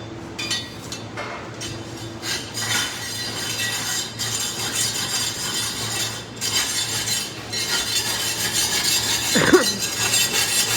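Machine-shop background: light metallic clinks and clatter over a steady hum and hiss, with a brief squeak-like glide near the end.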